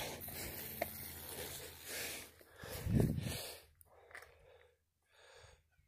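A man breathing close to the microphone: a faint hiss, one louder breath about three seconds in, then two fainter breaths.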